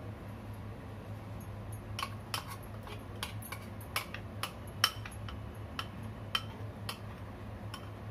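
Metal table knife scraping and knocking against a glass bowl as chocolate pancake batter is scraped out, a string of irregular sharp clicks, some ringing briefly, starting about two seconds in. A steady low hum runs underneath.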